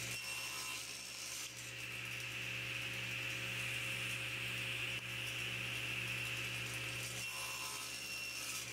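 Table saw running steadily while crosscutting small blocks from a 3/4-inch poplar strip on a crosscut sled set against a stop block.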